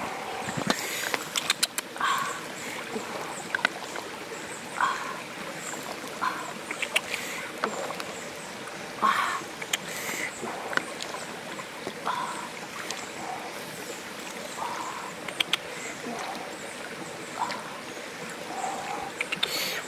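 Steady rush of a flowing stream, with scattered clicks and scrapes of a ladle against a metal tray and short calls every second or two.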